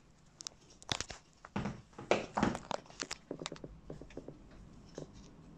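Crinkling, crackling and sharp little clicks of hands working materials onto a paper mache armature, in irregular bursts and loudest about two seconds in.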